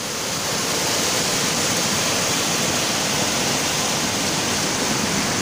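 Muddy flash-flood torrent rushing over rocks down a hillside stream bed: a steady, loud rush of water.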